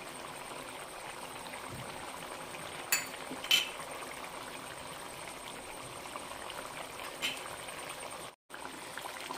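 Thick tomato-coconut curry bubbling at a steady simmer in a pan, with a few light clicks. The sound cuts out briefly near the end.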